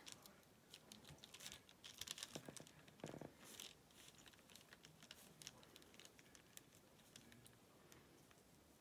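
Faint light taps and rustling of fingers handling and pressing small fabric scraps down onto a paper pattern, mostly in the first half.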